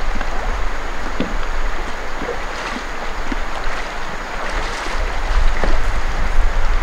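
Rushing river water, with wind rumbling on the microphone, growing heavier in the second half. Scattered light knocks and splashes come from a man moving in the shallows beside a wooden dugout canoe.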